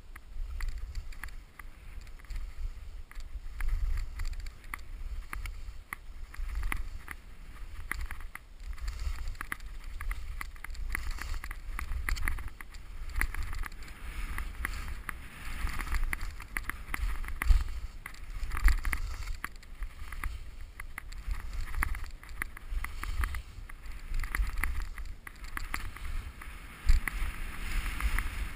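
Skis scraping and hissing over packed, chopped-up snow through a run of turns, the hiss swelling and fading with each turn, with a couple of sharp knocks from bumps. Wind rumbles on the head-mounted camera's microphone throughout.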